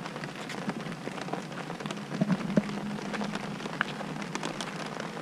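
Steady rain, with many sharp ticks of drops striking close by, such as on an umbrella canopy. A few soft knocks come about two seconds in.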